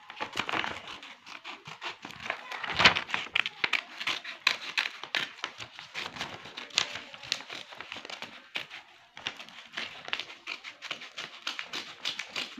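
A sheet of paper rustling and crinkling as a page is handled and cut out, with many small irregular crackles and one louder crackle about three seconds in.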